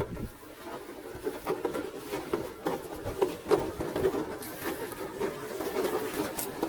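Small electric motor and gearbox of a toy RC 4x4 whirring unevenly as the throttle comes and goes, with scattered clicks.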